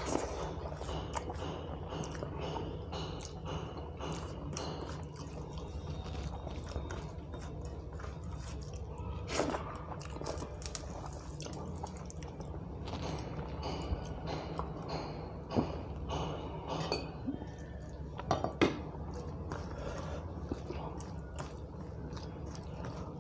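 Eating by hand from a steel plate: fingers mix and scrape rice and dal on the metal with small clinks, amid chewing. There are a few louder sharp clicks, over a steady low hum.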